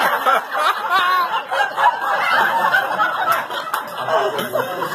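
Several people chuckling and laughing over a background of overlapping talk.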